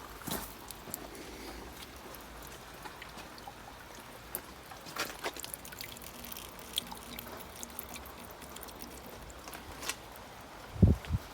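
Rainwater trickling and dripping, with irregular small drip ticks over a faint steady trickle. Two low thumps just before the end.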